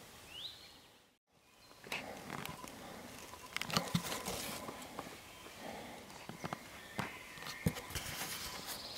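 European badgers foraging through dry leaf litter: irregular rustling with many sharp crackles and scratches, starting after a brief break in the sound about a second in.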